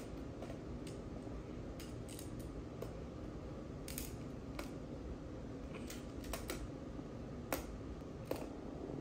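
Plastic magnetic building tiles clicking as they are snapped together and handled, about a dozen sharp clicks at irregular intervals over a steady low background hum.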